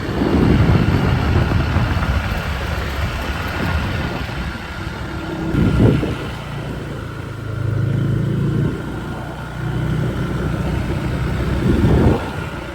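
A motor vehicle engine running, its low hum rising and falling in strength over a steady rushing noise. The sound cuts off suddenly at the end.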